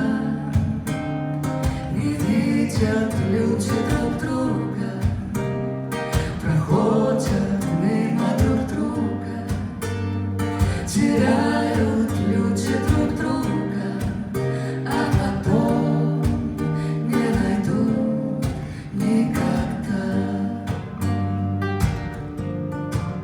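Live jazz music: an acoustic guitar strumming and picking chords while a singer's voice comes and goes over it.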